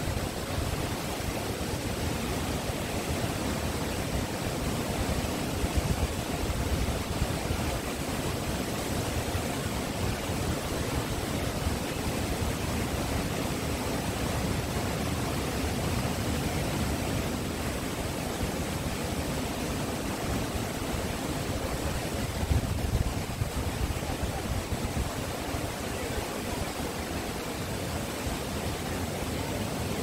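Steady rush of the Ézaro waterfall on the Xallas river pouring into its pool, an even hiss of falling water with a deep rumble under it, twice briefly louder.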